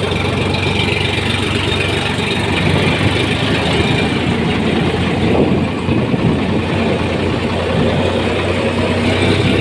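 Farm tractor's diesel engine running steadily under way, heard up close from the seat.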